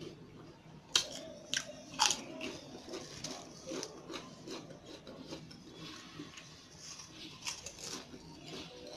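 Potato chips being bitten and chewed close to the microphone: a few sharp crunches about one to two seconds in, then a run of smaller, quieter crunches as the chewing goes on.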